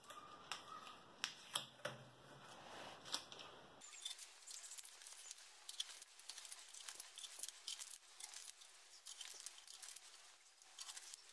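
Blue painter's tape being peeled off a mirror and glazed tiles, strip after strip: faint crackling tears and small ticks.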